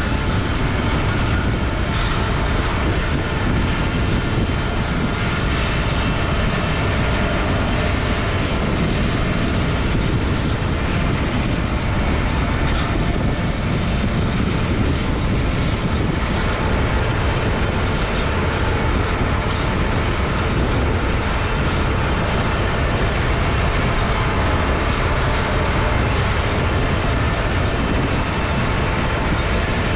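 Heavy diesel harvest machinery running steadily, a loud, even rumble and clatter.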